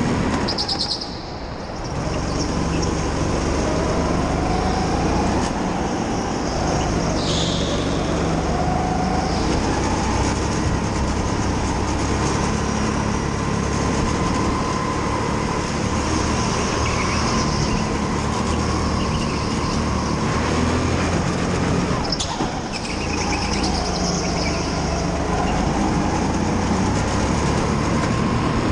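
On-board sound of a go-kart running at speed, its motor note wavering up and down with speed. The sound drops briefly about a second in and again about 22 seconds in, as the kart slows, then picks up again.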